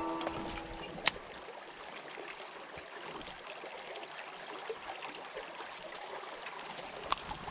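Mountain stream water flowing, a steady rushing hiss, with two sharp clicks, one about a second in and one near the end.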